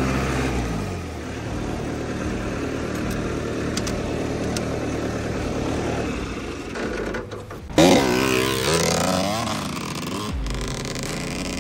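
An engine running steadily, its pitch falling in the first second, then revved hard about eight seconds in, the pitch swinging up and down in quick blips.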